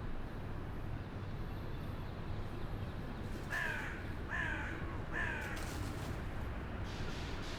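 A crow cawing three times in quick succession, each caw dropping slightly in pitch, over a steady low background rumble.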